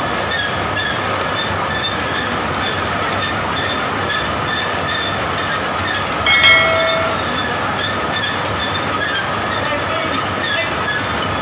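Long roller-chain conveyor of a rubber-glove dipping line running, a steady mechanical clatter of chain links and rollers with a faint rhythmic whine. A short metallic squeal about six seconds in is the loudest moment.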